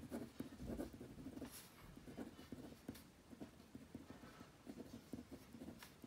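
Ballpoint pen writing on a sheet of paper: faint, irregular scratching strokes as words are written out.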